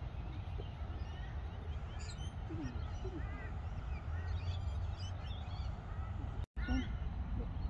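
Birds calling: a few short arched calls about three seconds in and a quick run of them near the end, over a steady low rumble.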